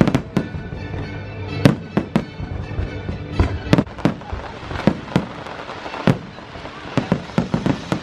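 Fireworks display bursting overhead, a dozen or more sharp bangs at irregular intervals, over the show's music playing through loudspeakers.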